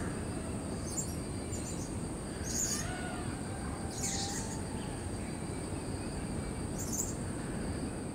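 Rimatara lorikeets (Kuhl's lorikeets) giving about five short, high-pitched calls over a steady background hiss and a thin, steady high whine.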